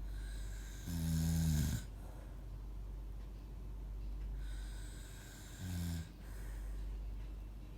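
Snoring: a droning snore lasting about a second near the start and a shorter one about six seconds in, with breathy air noise between them.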